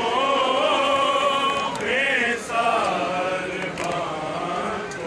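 Men's voices chanting a Shia mourning lament (noha) together, in long wavering held notes.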